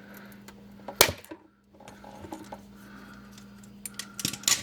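Sharp small clicks and taps of tools and metal parts being worked on the shift cable's retaining clips: one loud click about a second in and a quick cluster of clicks near the end.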